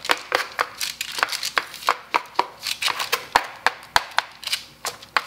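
A metal bench scraper knocking and pressing against logs of cookie dough on a baking sheet: quick, repeated knocks, about three to four a second.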